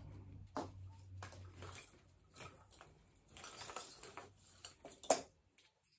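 Christmas ornaments being rummaged through and picked up from a table: irregular rustling and light clicks, with one sharper click about five seconds in.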